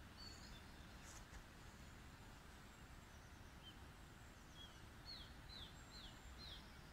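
Faint woodland birdsong over quiet outdoor ambience: a few short chirps, then a run of four or five quick falling notes near the end.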